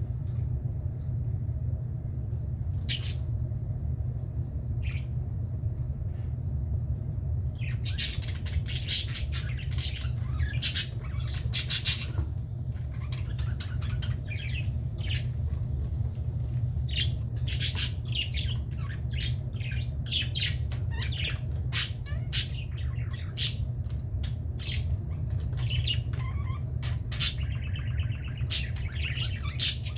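Budgerigars chirping and squawking in short calls, a few at first and then busy, overlapping chatter from about eight seconds in, over a steady low hum.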